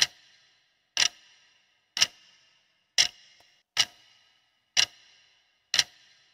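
Clock ticking at about one tick a second: a countdown-timer sound effect marking the time allowed to answer a quiz question. Each tick is a sharp click with a short ringing tail.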